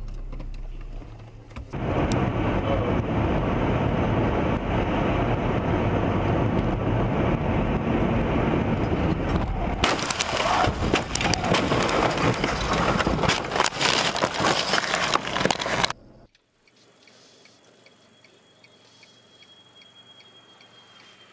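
Dashcam audio: a loud, steady rushing noise, joined about ten seconds in by many sharp cracks and knocks, then cut off suddenly to a quiet car cabin with faint regular ticking.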